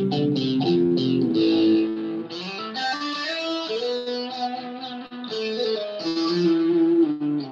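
Solo electric guitar played with a pick: quick picked notes in the first couple of seconds, then a slower melodic lead line of longer held notes.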